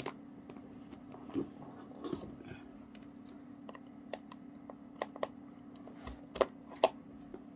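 Scattered small clicks and light knocks of a desk lamp and its plug being handled, plugged in and switched on, over a faint steady hum.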